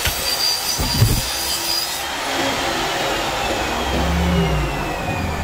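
Electric hand drill running with a high whine that holds steady, then slowly drops in pitch over the last few seconds. There is a knock about a second in.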